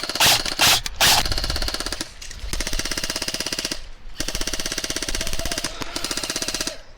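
An airsoft electric gun (AEG) firing long full-auto strings, a fast, even rattle of gearbox cycles, broken by short pauses about two seconds in and about four seconds in. A few loud sharp cracks come in the first second.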